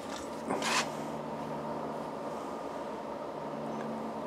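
Steady machine hum with a few faint steady tones in it, and a brief rustle about half a second in.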